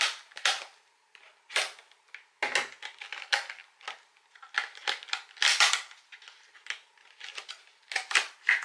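Stiff plastic packaging of a phone case crackling and snapping in irregular bursts of sharp clicks as it is flexed and pried open by hand; the package is hard to open.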